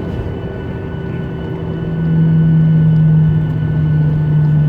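Jet airliner engines heard as a steady rumble inside the cabin. About two seconds in a loud low drone swells up and then slowly sinks a little in pitch.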